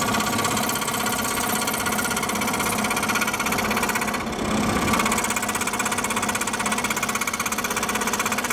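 Scroll saw running with its blade stroking rapidly up and down as it cuts a curve through a thin sheet workpiece: a steady, fast, even chatter.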